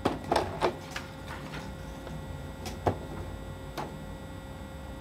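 Canon PIXMA iP1700 inkjet printer being switched on and starting up: irregular clicks and clunks from its mechanism, several in the first second and a couple more later.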